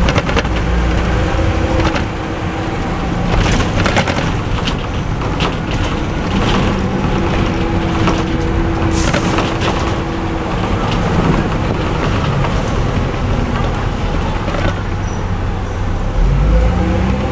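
Cummins LT10 diesel engine of a Leyland Olympian double-decker bus running on the move, heard from inside the bus with road noise and sharp body rattles. Its pitch shifts between steady tones and rises near the end as the bus picks up speed.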